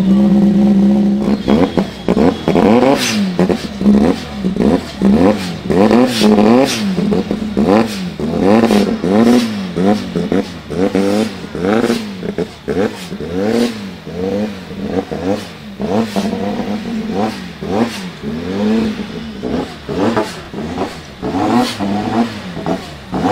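Lancia Delta S4 twincharged four-cylinder engine, turbocharged and supercharged, running at a steady fast idle and then revved in short throttle blips, about one a second, over and over, with some crackles.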